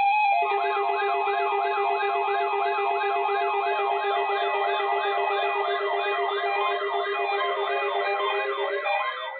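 Electronic siren yelping, its pitch sweeping up and down about three times a second, with a steady lower tone underneath. It starts about half a second in and cuts off near the end.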